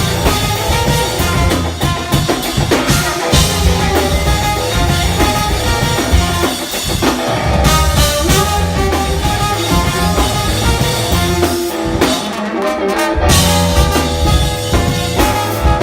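Live band playing a groove on drum kit and horns. The low end drops out for about a second near the end, then comes back in.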